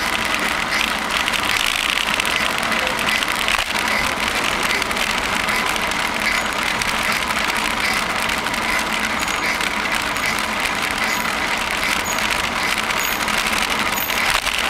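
Steady rushing noise from a bicycle moving through a long tunnel, with a faint steady hum underneath.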